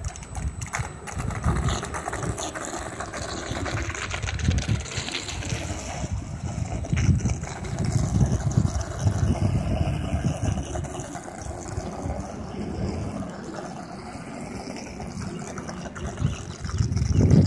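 Wind buffeting the microphone in gusts, a low rumble that rises and falls.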